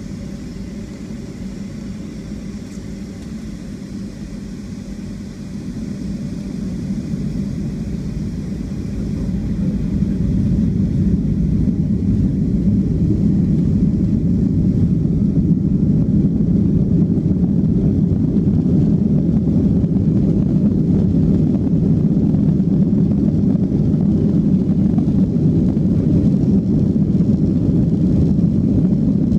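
Jet airliner's engines heard from inside the cabin, spooling up to takeoff power about six to ten seconds in. After that the engines and rolling wheels make a steady loud rumble through the takeoff roll.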